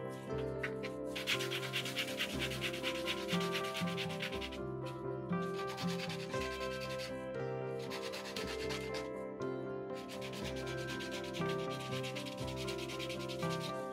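A cured resin piece sanded by hand on a sheet of silicon carbide sandpaper: a dry, gritty scratching as it is rubbed back and forth, in several spells with short pauses, smoothing the cast resin's edges.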